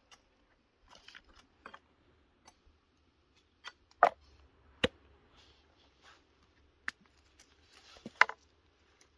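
Sparse knocks and clicks of a cleaver and a whole raw chicken being handled on a wooden cutting board, with soft rustling between. The sharpest knocks come a little after four seconds in and again just after eight seconds.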